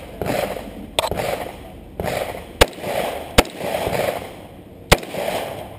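Gunshots from a competitor's firearm during a 3-gun stage: about five irregularly spaced shots, roughly a second apart, each followed by a short trailing echo.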